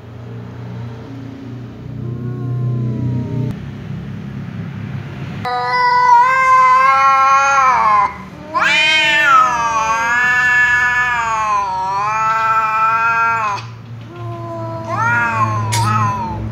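Tom cat yowling at a rival cat in an aggressive face-off: long, drawn-out caterwauls that rise and fall in pitch, starting about five seconds in. Two long wails come back to back, the second lasting about five seconds, and a shorter one comes near the end.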